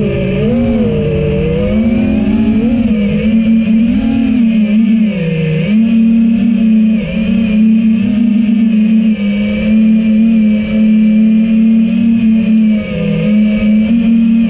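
FPV quadcopter's brushless motors and propellers whining close up, the pitch rising and falling with the throttle.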